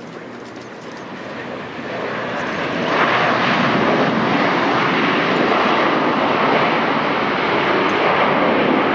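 Jet airliner's engines, a broad roar that swells over the first three seconds and then holds loud and steady.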